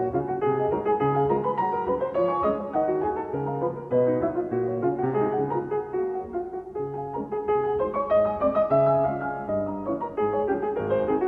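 Background piano music, a steady run of notes over a repeating bass line.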